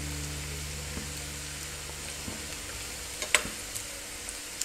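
Samosas deep-frying in hot oil with a steady sizzle, turned with a slotted metal spoon that gives one sharp clink against the pan about three seconds in. A low hum fades out about halfway.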